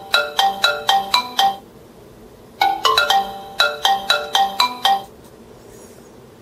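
Alarm ringtone playing from an iPhone: a quick melody of struck, bell-like notes, played through once, a pause of about a second, then again, ending about five seconds in.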